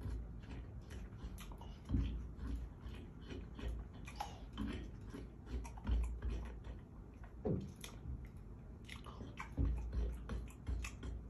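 A person biting into and chewing a slice of watermelon: irregular, fairly quiet crunches and mouth clicks, with a few low thumps as bites are taken.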